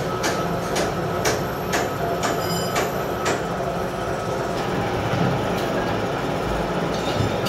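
Gear hobbing machine running, its hob cutting helical teeth into a gear blank: a steady mechanical clatter, with sharp ticks about twice a second during the first half.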